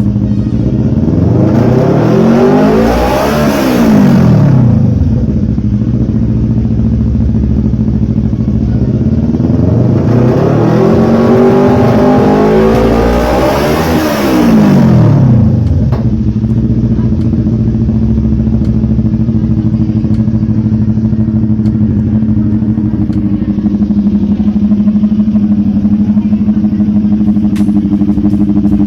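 CFMOTO NK400/GT400 parallel-twin motorcycle engine, heard through an aftermarket muffler, revved twice from idle while standing still. Each rev climbs and then drops back, and the second is longer. It then settles to a steady idle.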